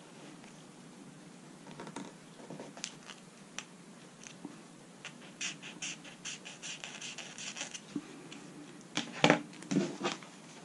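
Burnt tip of a fluorocarbon fishing leader scratching and tapping across notebook paper in a quick series of light scratches as it marks a line of carbon. Louder paper handling and rustling near the end as the spiral notebook is moved.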